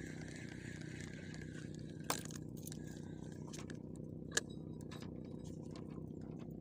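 Ryobi Zeus 3000 spinning reel being cranked to bring a lure back, with a steady low hum underneath and two sharp clicks, about two seconds in and again near the middle.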